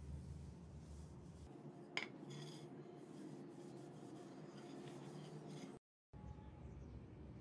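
Cloth rubbed along a wooden tool handle, a faint, even rubbing, with one sharp click about two seconds in. The sound cuts out completely for a moment just before six seconds.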